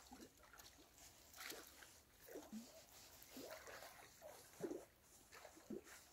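Near silence, broken by faint, short animal calls that bend up and down in pitch, about one a second from about two seconds in.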